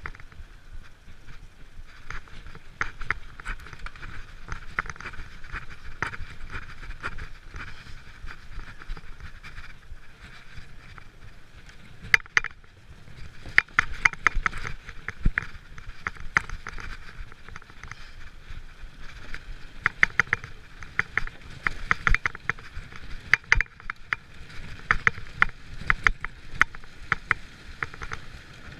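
Giant mountain bike rolling along a wooden plank boardwalk: a rapid, uneven clatter of the tyres and bike rattling over the plank joints, over a low rolling rumble. The clatter gets busier and louder about halfway through.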